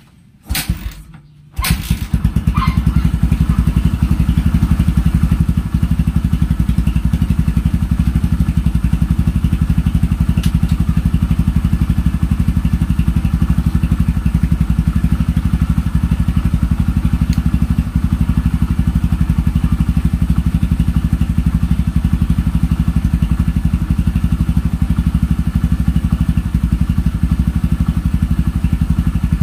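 Kawasaki Barako 175 single-cylinder four-stroke engine kick-started, catching about two seconds in, then idling steadily. It starts with the choke after sitting unused, and the owner takes its steady running as a sign that the carburetor is in good condition.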